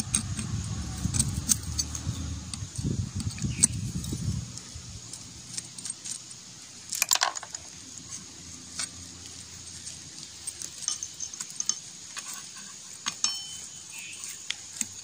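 Steel hand tools clicking and clinking against a motorcycle engine's front sprocket and case as the sprocket's two 10 mm bolts are loosened and its lock plate is worked off, with one sharper metal clink about seven seconds in. A low rumbling noise runs under the first four seconds or so.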